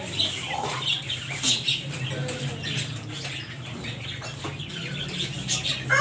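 Caged budgerigars chirping in a busy chatter of short high calls, with a few lower clucks from chickens, over a steady low hum.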